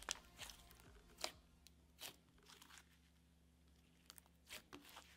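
Soft clear-glue jelly slime being squeezed and pressed by hand, giving faint, irregular wet clicks and pops as it squishes, the sharpest about a second and a quarter in.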